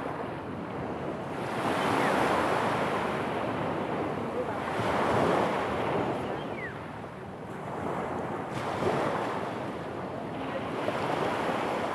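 Small sea waves breaking and washing up a pebble beach, the surf swelling and fading about four times.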